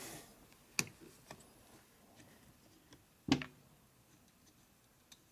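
A few light clicks and taps of small carburetor parts being handled on a workbench, the two clearest a little under a second in and about three seconds in.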